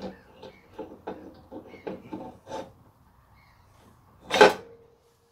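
Classic Mini rear brake drum being worked onto its hub over the wheel studs. There are light metal taps and clicks for about two and a half seconds, then one loud metallic clunk about four seconds in as the drum seats, with a short ringing tone after it.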